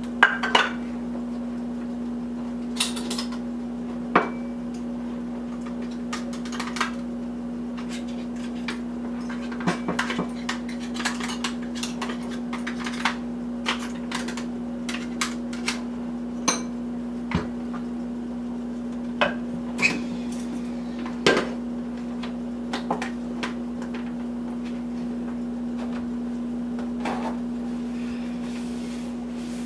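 Irregular clinks and taps of a small electric spice grinder's cup being handled and knocked against a bowl to empty it. A steady low hum runs underneath.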